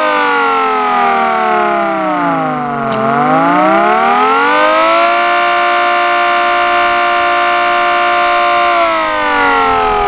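Homemade wooden air raid siren with a two-layer vaned rotor spun by an electric motor, wailing loudly. Its pitch falls for about three seconds, rises again, holds steady, then starts to fall near the end as the rotor slows.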